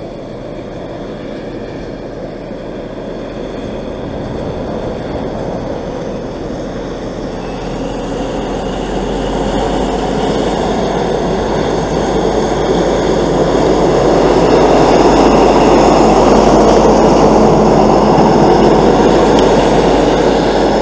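Class 43 HST power car's MTU diesel engine working under power as the train pulls away, growing steadily louder as the power car approaches and then passes close by, the loudest part a little over halfway through.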